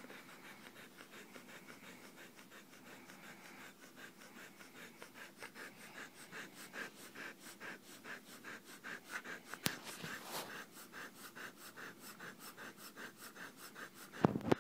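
Siberian husky panting close to the microphone, a quick, steady rhythm of breaths, with one sharp click near the middle.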